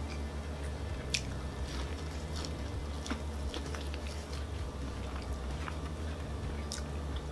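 A person biting into and chewing breaded fried cheese sticks, with soft wet mouth clicks here and there over a steady low hum.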